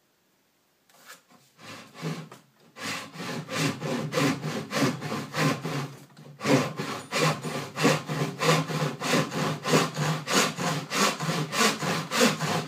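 Handsaw cutting through a wooden board held in a bench vise: a run of quick, even strokes, a few a second, starting tentatively and settling into a steady rhythm about three seconds in, with a brief pause near the middle.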